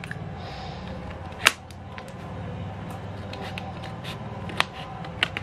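Sharp clicks and taps of a small snap-off utility knife working on a PET plastic water bottle, the loudest about one and a half seconds in and a few more near the end, over a steady low hum.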